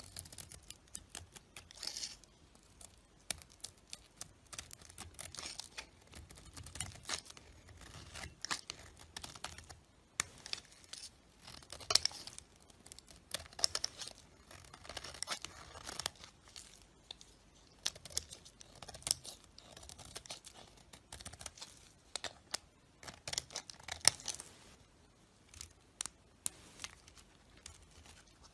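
A blade cutting and carving a bar of soap: a quick run of crisp scraping and crackling strokes, some sharper snaps among them.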